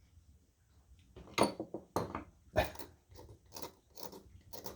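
Hard varnish being scraped off an old wooden screwdriver handle: a series of short, irregular scrapes starting about a second in.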